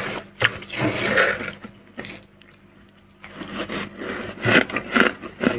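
Soft freezer frost crunching in short, crisp bursts, with a lull of about a second midway.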